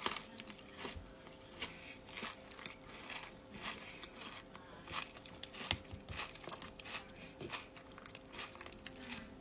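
A person chewing and biting into food, with soft, irregular crunches throughout.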